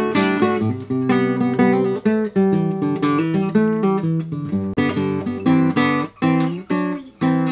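Theme music: an acoustic guitar strummed and picked, with changing chords.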